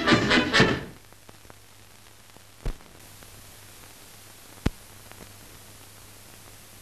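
Band music ends about a second in, leaving the steady hiss of an old film soundtrack, broken by two sharp clicks about two seconds apart.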